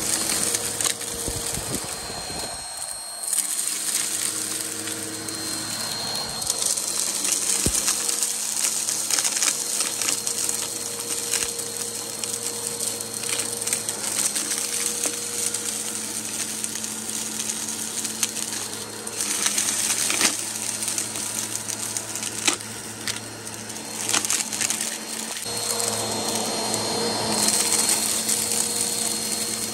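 Vacuum cleaner running steadily, with a motor hum and a thin high whine, and a continuous crackle and crunch as it sucks up dirt.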